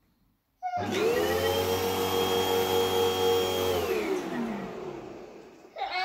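Vacuum cleaner motor switched on: it starts abruptly under a second in and runs steadily with a high whine for about three seconds, then is switched off and winds down with a falling pitch.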